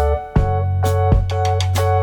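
Background music: a keyboard melody over a heavy steady bass with a regular beat.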